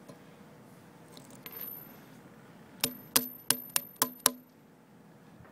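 Ratchet wrench with a socket on an anchor nut, clicking sharply six times in a little over a second with a brief metallic ring, starting about three seconds in.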